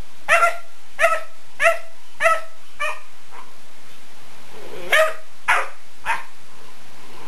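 Bluetick coonhound puppy barking: a run of short, evenly spaced barks, about one every 0.6 s, growing weaker by the third second, then after a short pause three more barks.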